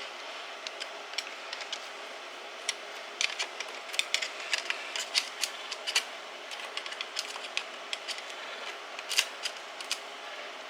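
Scattered light metallic clicks and ticks from hand tools and small engine parts being handled during an engine teardown, over a steady low hiss.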